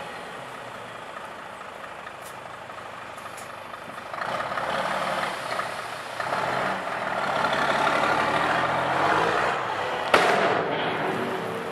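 Scania P380 tipper truck's diesel engine running while the body is raised to dump sand. The engine grows louder about four seconds in as the truck works. A single short, sharp sound with a brief hiss comes near the end.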